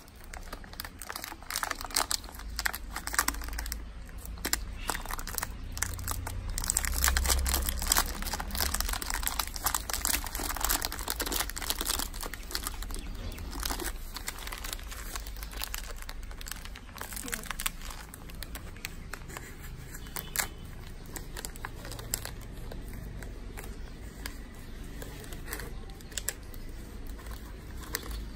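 Plastic biscuit packet crinkled by hand, a dense crackling rustle that is busiest in the first half and then eases off. It is a feeding call: the sound of the biscuit wrapper is used to bring stray puppies over.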